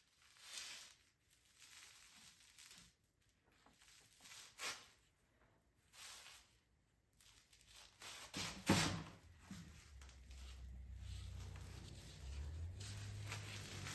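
Faint scattered clicks, rustles and light knocks of engine parts and tools being handled. A low steady hum comes in about eight seconds in.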